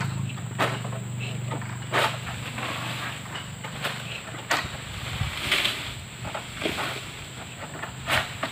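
Pole-mounted sickle (egrek) pulled against an oil palm frond in irregular strokes, each a sharp crunch or scrape, roughly every one and a half to two seconds. A steady high insect buzz runs behind it, and a low hum fades out about halfway through.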